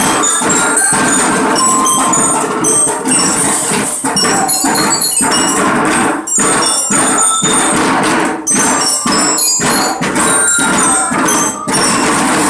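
A children's drum band playing: many small snare drums beaten with sticks, with a melody of short, high, bell-like notes from glockenspiels (bell lyres) ringing over the drumming.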